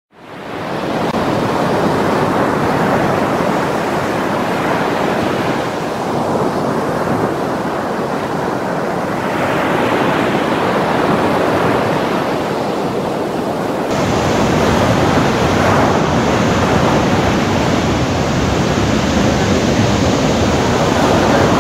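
Heavy surf from a strong ocean swell breaking on a rocky reef shore: a loud, steady roar of crashing waves. It fades in at the start and turns fuller and brighter about 14 seconds in.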